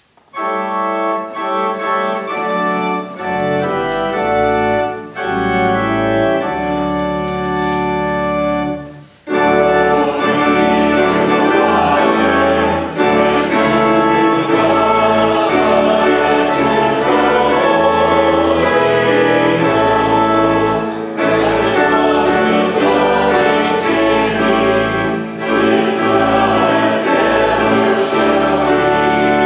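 Organ plays an introduction in sustained chords over a low bass. About nine seconds in, the congregation comes in singing a hymn with the organ accompanying.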